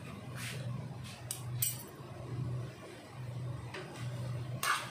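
Metal ladle knocking and scraping against a stainless steel wok of stir-fried kombu: a handful of separate clinks, the loudest near the end, over a steady low hum.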